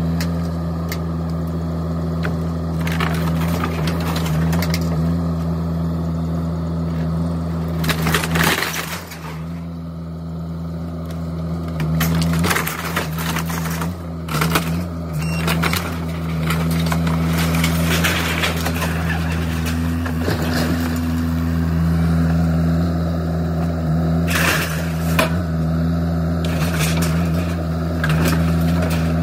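A demolition machine's engine running steadily under load while it tears into a house's structure. Wood cracks and breaks with repeated crashes, the loudest about eight seconds in and again near the end.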